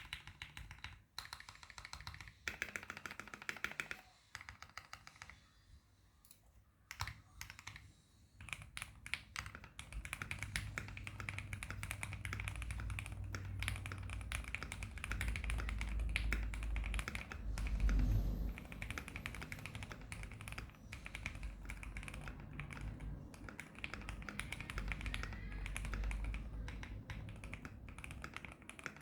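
Typing on a Keychron Q1 V2 mechanical keyboard with SP Star Meteor White switches on a steel plate, modded with switch foam, PCB foam and masking tape. Slow, scattered keystrokes for the first several seconds, then fast continuous typing from about a third of the way in.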